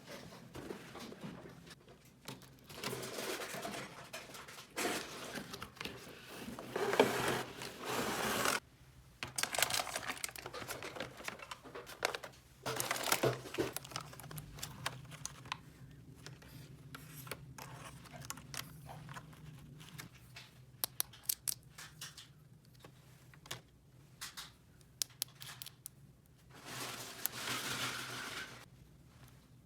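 Packaging being torn and crinkled in several stretches a few seconds long, with short sharp clicks in between, like small plastic pieces being handled.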